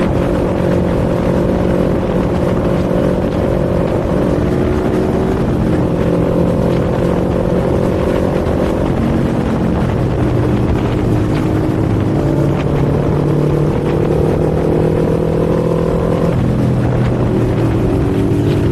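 Kawasaki Z400's parallel-twin engine and exhaust running on the move. The revs shift several times, climbing slowly for a while and then dropping suddenly near the end, as on an upshift.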